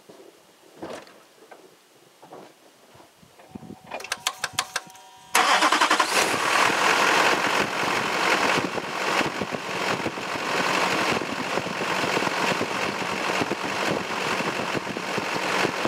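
Starter cranking a 6.6L LLY Duramax turbo-diesel V8 in fast, even strokes for just over a second. The engine then catches suddenly and runs steadily at idle, started to check that a freshly reinstalled serpentine belt stays on.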